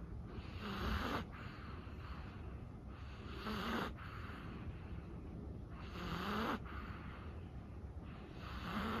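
A sleeping chihuahua snoring softly, four snoring breaths about two and a half seconds apart, each a short low snore with a hiss.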